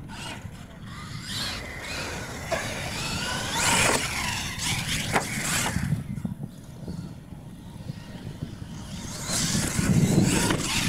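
R/C monster truck motor whining up and down in pitch as the truck is driven hard across a dirt track, with a few sharp knocks in the middle and a louder low rumble near the end.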